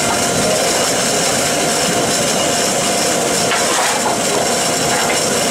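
Loud, steady hiss of steam escaping from rebuilt Bulleid light Pacific 34046 Braunton standing in the station, most likely its safety valve blowing off with the boiler at full pressure. A couple of faint knocks come about three and a half seconds in.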